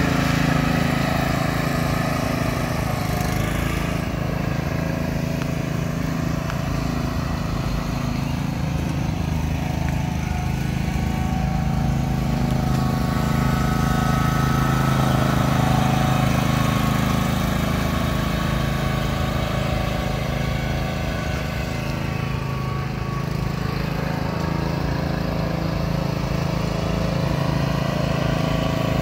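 Small engine of a motorized roofing material cart running steadily as the cart is driven along.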